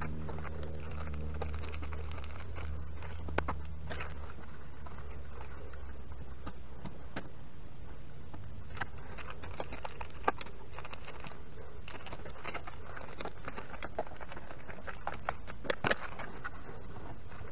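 Scattered light clicks and taps of hands working heavy wires and a screwdriver at a two-pole circuit breaker's terminal screws.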